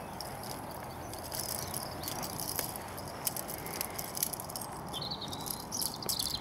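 Footsteps on a grass lawn with light rustling and many small clicks, as cable and plastic fuse clips are carried across it, and birds chirping in the background.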